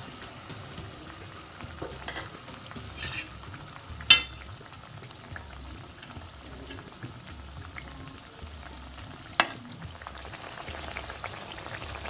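Mango malpua batter frying in hot refined vegetable oil in a kadai: a steady sizzle with fine crackles, broken by two sharp clicks, about four seconds in and again about nine seconds in.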